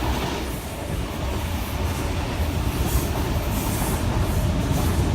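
Sydney Trains Tangara electric multiple unit passing beneath, a steady rumble of wheels on rail.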